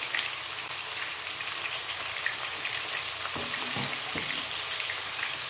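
Two masala-coated pearl spot fish (karimeen) shallow-frying in coconut oil in a pan at medium heat: a steady sizzle with faint crackles.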